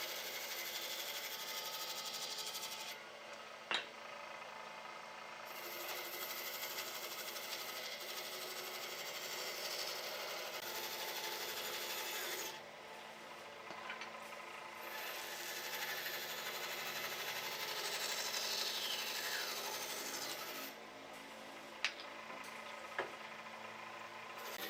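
A hand tool rubbing against wood in long steady stretches, with a few short sharp knocks.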